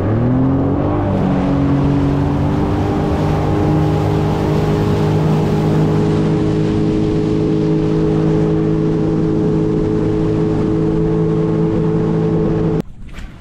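Sea-Doo Fish Pro personal watercraft engine speeding up, rising in pitch over the first second, then running steadily at cruising speed with water rushing past the hull. It cuts off suddenly near the end.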